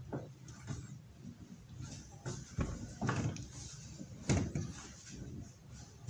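A few light plastic knocks and clicks from the drain mechanism of a Dawlance DW 170C2 twin-tub washing machine as the drain selector is turned and the cord lifts and drops the drain valve plug. The loudest knock comes a little past the middle.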